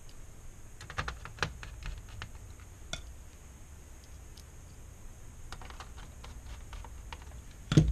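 Light, irregular clicks and taps of a small screwdriver and small metal parts against the thin aluminium back cover of an LCD panel, with a louder knock right at the end.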